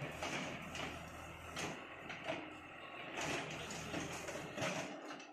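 JCB backhoe loader's diesel engine running steadily while its backhoe bucket scrapes and breaks up concrete and brick rubble, with several scraping knocks.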